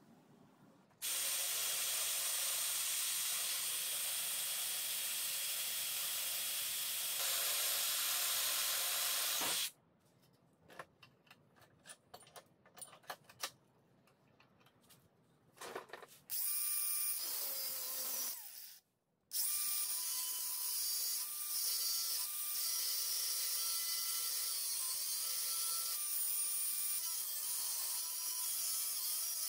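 Angle grinder cutting a steel flat bar, a steady whine that dips in pitch now and then as the disc bites. In a break of several seconds the grinder stops and there are scattered clicks and knocks as the bar is clamped to the bench, then the cutting resumes.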